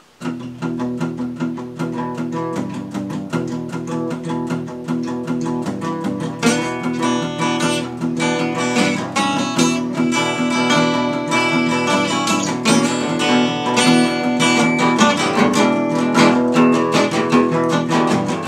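Two acoustic guitars playing an instrumental intro together, strummed and picked, sounding fuller from about six seconds in.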